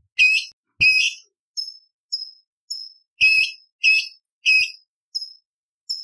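Orange-bellied leafbird (cucak cungkok) singing: a string of short, sharp whistled notes about twice a second. Louder, harsher notes come twice near the start and three times after about three seconds.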